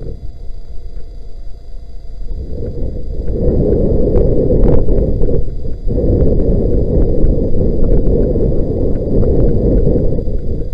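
Wind buffeting the microphone: a loud, fluttering low rumble that grows louder about three seconds in, with a few faint clicks.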